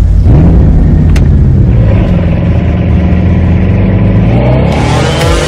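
Bugatti Chiron's quad-turbocharged W16 engine running loud, rising in pitch near the end as it revs up.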